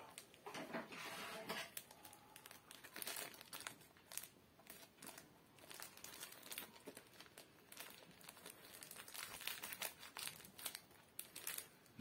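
Faint crinkling and rustling of a small packet of incense cones being handled, in scattered short crackles.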